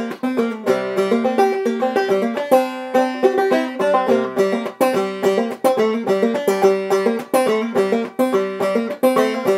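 Banjo played clawhammer style: a quick, even, rhythmic run of plucked notes in an old-time tune.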